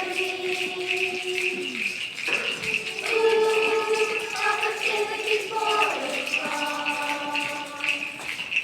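Music: a steady shaker-like rattle keeping an even beat under a slow melody of held notes that change every second or two.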